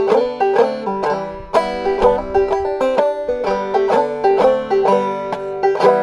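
Five-string banjo in open G tuning played clawhammer style: a quick, steady run of plucked notes with a high drone note recurring among them.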